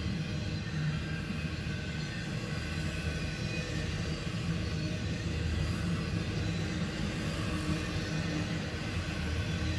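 Intermodal freight train of highway trailers on flatcars rolling past: a steady rumble of steel wheels on the rails.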